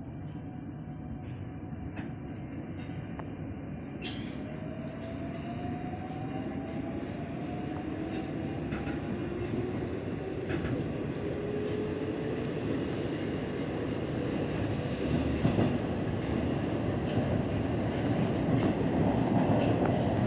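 Metro train pulling away from the station and accelerating, heard from inside the carriage: the traction motor whine rises in pitch while the wheel and running noise steadily grows louder.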